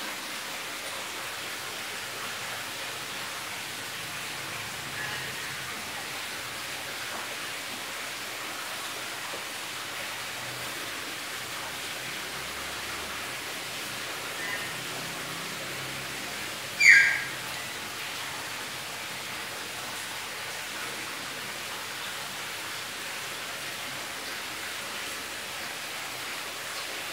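Steady soft hiss of pancake batter cooking in a non-stick frying pan over a gas burner, with the top of the pancake bubbling. One brief, sharp high-pitched sound stands out about two-thirds of the way through.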